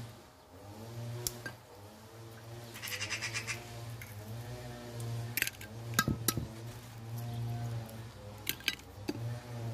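Eggs cracked one after another on the rim of an enamel bowl and dropped onto flour: sharp clicks of shell on metal, a few around the middle and more near the end. Farm animals bleat in the background.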